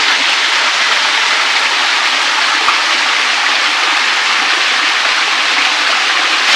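Loud, steady rush of a waterfall's cascading water.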